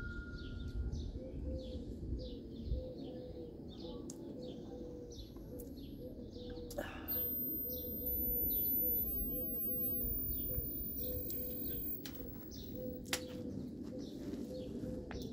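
Garden birds chirping over and over in short calls, over a low steady background rumble.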